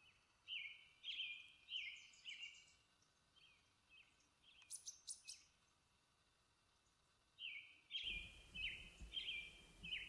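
Songbird singing faintly: phrases of four or five short, clear notes, each slurring downward, repeated after a pause, with a few thin higher notes in between.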